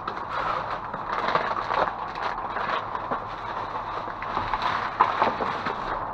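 Cardboard candy boxes and their wrappers being rummaged through by hand, an uneven stream of rustling, crinkling and light knocks.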